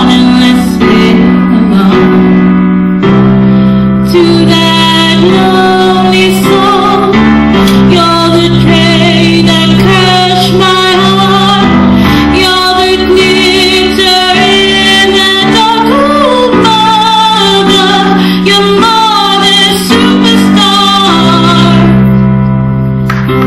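A woman singing a slow ballad with vibrato into a microphone, over held keyboard chords that change every second or two.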